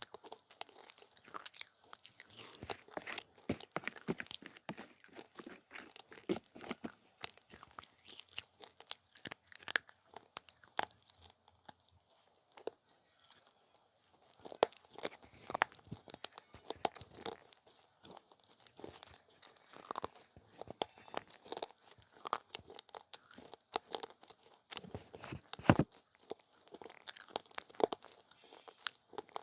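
Person biting and chewing crunchy pieces of baked clay, with dense crackling crunches close to the microphone and a short lull a little before the middle.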